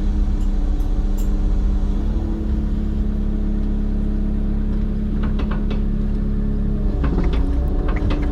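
Excavator engine running steadily at idle under hydraulic work, its note shifting about seven seconds in, with a few short knocks and clanks.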